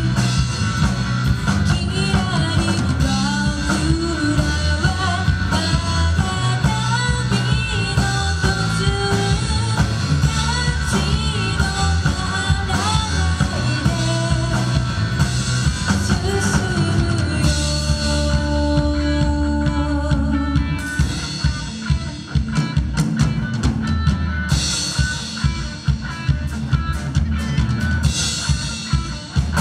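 Live rock-pop band playing: a woman sings over drum kit, electric guitar and acoustic guitar. About two-thirds of the way through, the singing stops and the band plays on without vocals.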